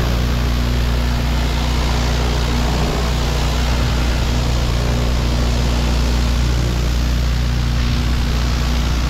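Gas pressure washer's engine running steadily, with the even hiss of the high-pressure water spray over it.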